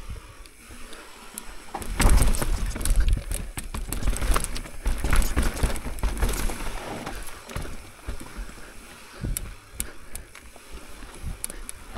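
Mountain bike descending a rough trail: tyres clattering over dirt and rock, with the chain and frame rattling. The clatter gets loud about two seconds in and eases off after about seven seconds.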